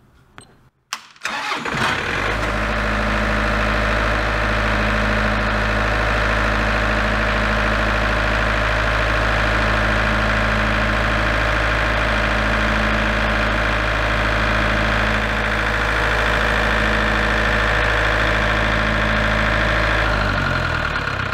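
Large Broadcrown diesel generator set cranking and starting about a second in, then running steadily with a deep hum. Near the end it shuts down on its controller's common alarm, the recurring fault that stops it after a short run, and its pitch starts to fall as it winds down.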